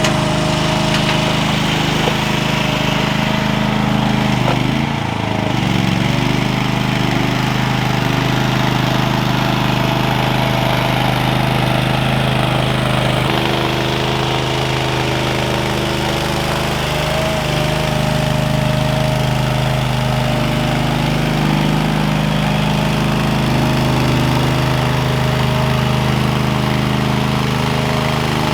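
Small gas engine of a Ditch Witch walk-behind trencher running steadily, with a brief change in its note about five seconds in.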